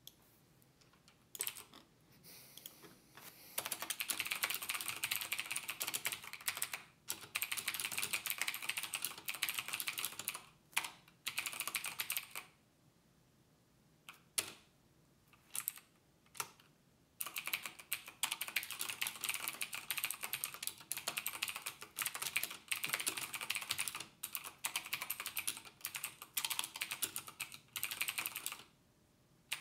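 Fast typing on a computer keyboard, in runs of keystrokes several seconds long broken by short pauses.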